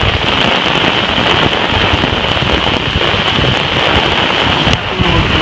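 Torrential rain pouring down steadily in a summer thunderstorm, with gusty wind buffeting the microphone.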